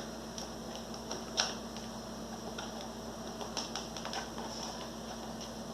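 Light, irregular clicks and taps of plastic parts and a screwdriver as the plastic base of an Arno blender is pressed shut and screwed back together, one sharper click about a second and a half in.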